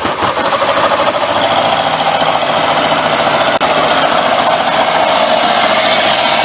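Small single-cylinder gasoline engine running steadily at a fast speed, turning a jet pump through newly fitted chain-and-sprocket gearing (1:1.8) with the boat out of the water.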